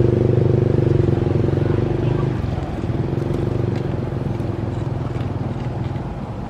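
A small engine running steadily, loudest in the first two seconds, then growing fainter.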